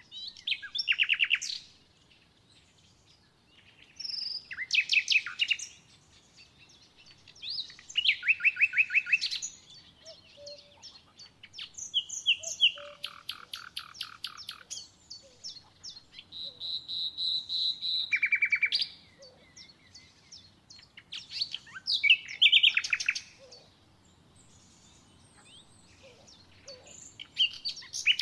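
Songbirds singing: a short, fast trilled song phrase about every four seconds, with other, thinner calls between.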